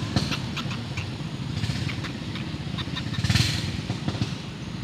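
A small engine running steadily with a low, rapid chugging, with light clicks and a brief rustle about three seconds in.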